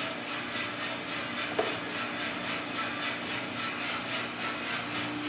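Small drum coffee roaster running: beans tumbling in the rotating drum, a steady noise with a regular pulsing over a low hum. One sharp click about a second and a half in.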